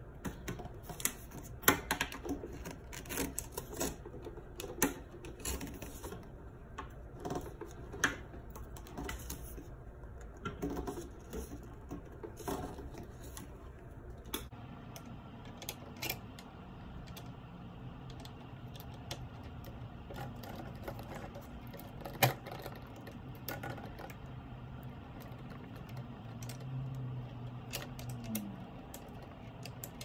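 Scattered clicks and taps from corrugated plastic drain hoses and a metal worm-drive hose clamp being handled and fitted together, then the clamp being tightened with a screwdriver. The clicks come thick in the first half and thin out after it.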